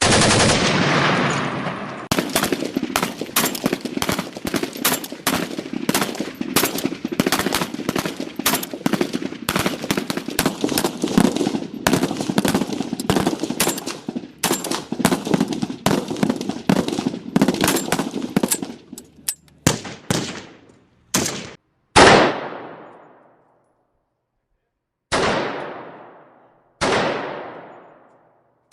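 AK-47 rifle gunfire: a loud bang that fades over about two seconds, then a long run of rapid, irregular shots, about three a second. After about nineteen seconds it thins to single shots a second or more apart, each trailing off in a long echo.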